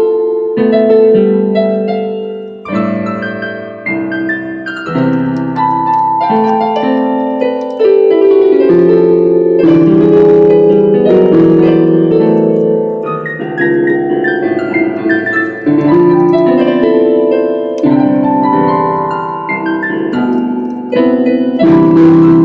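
Piano music: chords and a melody played on a piano or electric piano, notes held and changing every second or so.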